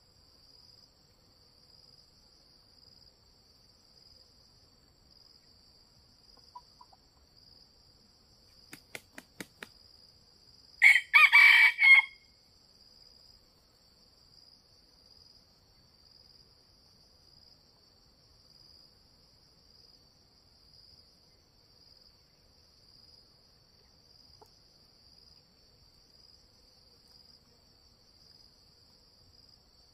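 A red junglefowl rooster crows once, a short loud crow of about a second, around eleven seconds in, just after a quick run of four or five sharp claps. A steady, high, pulsing insect trill runs underneath.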